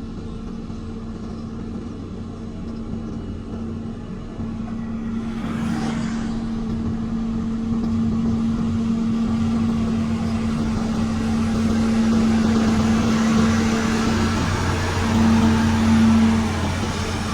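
Motor grader's diesel engine running steadily under load, its hum slowly growing louder, with a short hiss about five seconds in.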